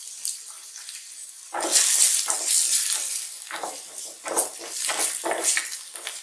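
Chopped onions sizzling in hot oil in a stainless steel kadai, sautéing. From about a second and a half in, a wooden spatula stirs them in a run of uneven scraping strokes over the sizzle.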